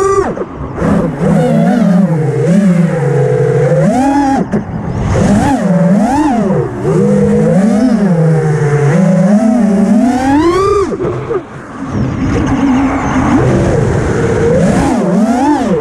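FPV freestyle quadcopter's brushless motors and propellers whining, the pitch swooping up and down again and again as the throttle is punched and chopped. The highest climb in pitch comes about ten seconds in, followed by a brief drop in loudness as the throttle is cut.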